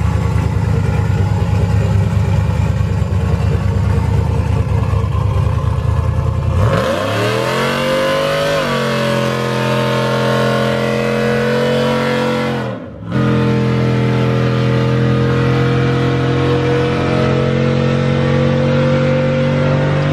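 Pickup truck engine rumbling at low revs, then revved sharply about a third of the way in and held at high revs with the rear tyres spinning in a burnout. After a brief break near the middle, another truck's engine holds steady high revs in a burnout.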